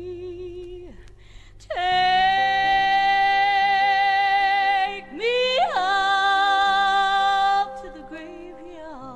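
Gospel music from a 1970s studio album: a voice slides up into a long held note with vibrato, breaks, then slides up into a second held note over sustained backing chords, dropping back to quieter singing near the end.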